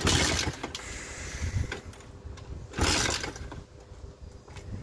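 Pit bike being kick-started twice, each kick a short burst of the engine turning over without catching. It will not start, which the owner puts down to a dead ignition.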